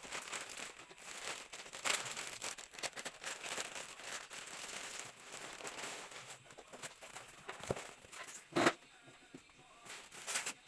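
Plastic packaging crinkling and crackling as a parcel is handled and opened, in a dense run of small irregular crackles with one louder sharp sound near the end.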